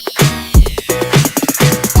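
Electronic background music with punchy drum hits and a falling sweep.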